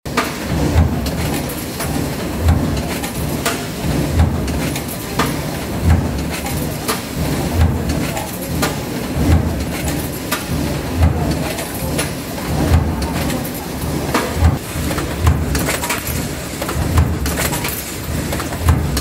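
Stamping press running with an in-die pin insertion system: a heavy thump at each press stroke, repeating evenly a little under once a second, over steady machine noise with sharp clicks.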